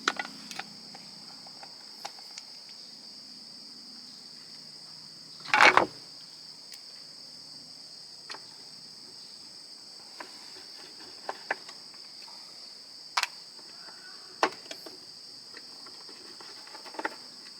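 Steady high-pitched chirring of crickets, with scattered clicks and knocks from hand tools working small parts out of a waffle maker; the loudest knock comes about six seconds in.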